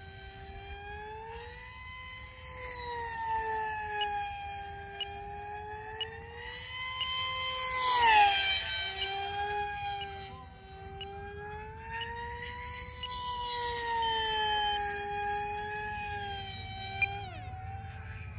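Multiplex FunJet Ultra 2 model jet's electric motor and pusher propeller whining in flight, the pitch rising and falling as it swoops. It is loudest on a fly-by about eight seconds in, where the pitch drops sharply as it passes, and there is another quick drop near the end.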